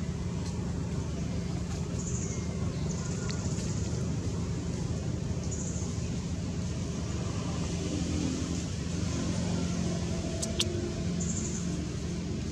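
Steady low rumble of distant road traffic, with a single sharp click about ten and a half seconds in.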